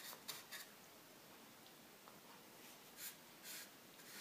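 Faint swishes of a paintbrush stroking white paint onto the slats of a wooden crate: a few quick strokes at the start and a couple more near the end, with quiet room tone between.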